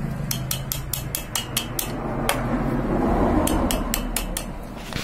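Quick runs of sharp metallic clicks from pliers working at the piston of a TVS XL Super two-stroke engine, fitting the lock on the piston pin before the cylinder goes on. The clicks come in two groups, with a lone click in between.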